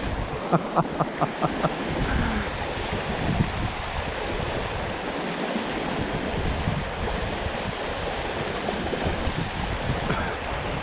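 Steady rush of river water flowing over rocks. Near the start comes a quick run of about six short clicks, roughly four a second.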